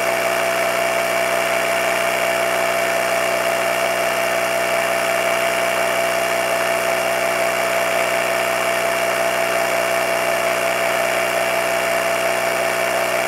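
ADNOOM cordless battery-powered tire inflator running steadily at an even pitch, its small compressor pumping air through the hose into an ATV tire toward the preset pressure.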